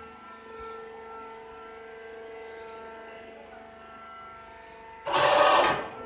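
Steady hum of baling-plant machinery with several constant tones, and a loud, short rushing burst about five seconds in that lasts under a second.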